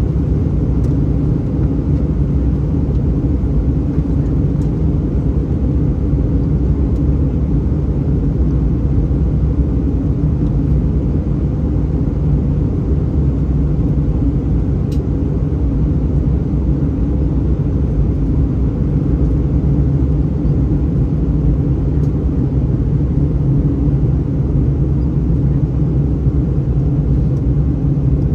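Steady low rumble of airflow and engines heard inside the cabin of an Airbus A319 in flight on approach.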